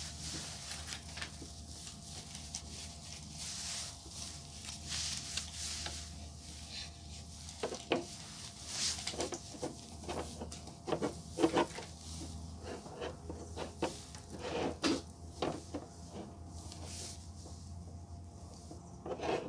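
Microfiber towel rubbing over a glossy black ABS plastic trim piece, then irregular hard plastic knocks and clicks from about eight seconds in as the piece is handled against the plastic drain pan beneath it.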